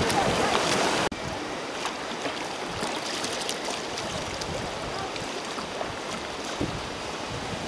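Choppy seawater splashing and lapping against a sea kayak's hull, with wind on the microphone for about the first second; then it drops suddenly to a quieter, steady lapping with a few small splashes.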